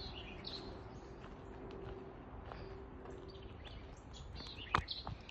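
Wild birds chirping in short, scattered calls over a low outdoor background hiss, with a single sharp click near the end.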